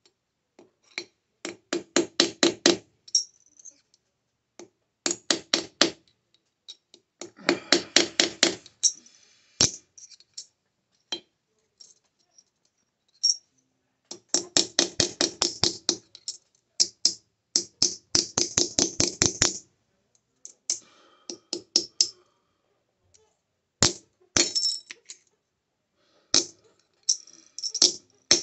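A hand hammer striking a sterling silver bar on metal as it is forged, in quick volleys of rapid ringing blows, about eight a second, separated by short pauses.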